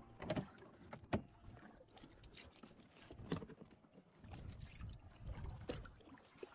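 Scattered light knocks and clicks of fishing gear and a gaff being handled aboard a small inflatable boat, over a faint low rumble of water and wind.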